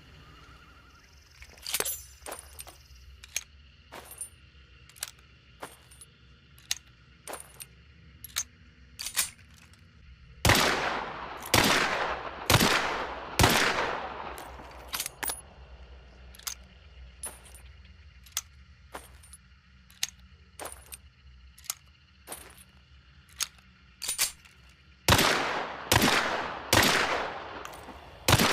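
Pistol sound effects: a run of sharp, dry clicks spaced about a second apart, then four loud gunshots roughly a second apart, each with a long fading ring. More clicks follow, and near the end a quicker string of shots.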